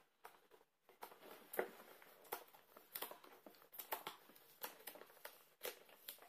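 Fingers picking and scraping at a sealed cardboard box, faint irregular clicks and rustles of the card as the seal and lid are worked open, starting about a second in.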